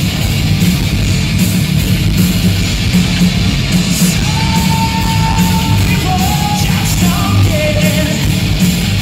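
Live hard rock/heavy metal band playing loudly: distorted electric guitars, bass and pounding drums with crashing cymbals. Long held high notes come in about halfway through.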